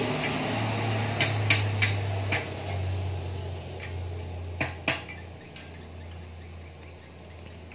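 Light metallic clinks and knocks from a welded steel-rod ring being turned and handled, several sharp ones spread unevenly, over a low steady hum that fades away.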